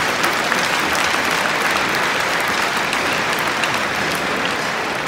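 Large arena crowd applauding steadily.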